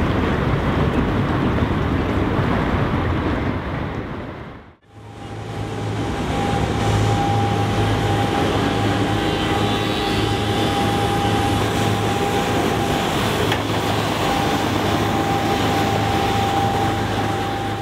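Street traffic noise for the first few seconds. After a cut comes the steady low hum of a track-maintenance truck and its rail-wheeled equipment trailer moving along the tram tracks, with a steady high whine over it. The whine breaks off briefly about three-quarters of the way in.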